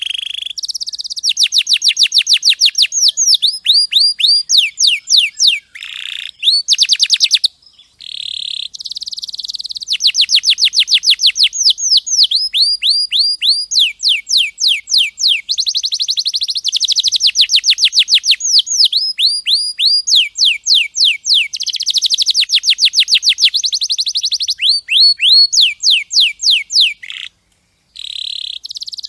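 Canary singing a long song made of rapid trills: fast runs of short, high, downward-sweeping chirps that change in pitch from phrase to phrase. The song breaks off briefly about seven and a half seconds in and again near the end.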